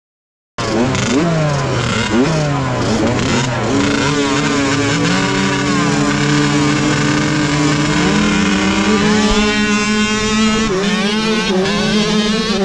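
Several small motocross bike engines revving together, starting about half a second in. Their pitches climb and fall in quick blips, then hold fairly steady, and rise again near the end.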